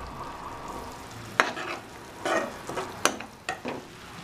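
Coarsely ground onion paste sizzling in hot oil in a nonstick pan, stirred with a spatula that scrapes and knocks against the pan several times.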